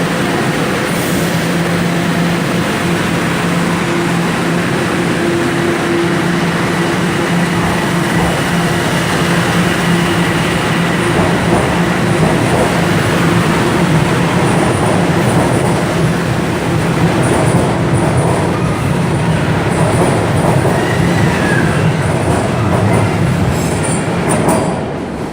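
Toronto Rocket subway train departing a station: a steady hum from its traction equipment over the rumble of wheels on the rails, with faint high wheel squeals in the second half.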